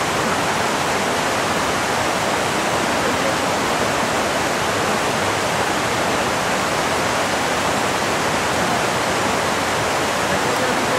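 Mountain stream rushing over rocks, a loud, steady noise of running water.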